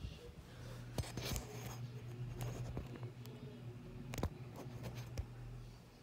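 SMC U42 ceiling fan running with a steady low motor hum, mixed with scattered sharp clicks and rubbing.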